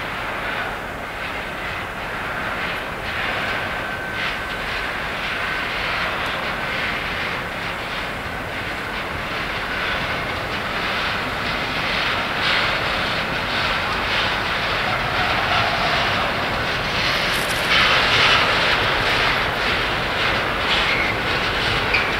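Diesel-hauled freight train of loaded open wagons approaching, a steady engine drone with rumble from the wagons, growing slightly louder as it draws nearer.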